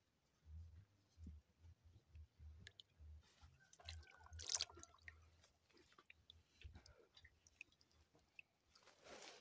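Near silence with faint, irregular low bumps and small rustles and clicks close to the microphone, typical of a phone being handled, and one brief louder scrape about four and a half seconds in.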